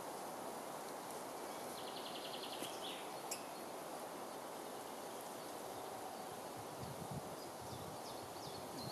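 Quiet forest ambience: a steady outdoor background hush with a short, rapid bird trill about two seconds in and a few faint bird chirps near the end, plus a soft rustle around seven seconds in.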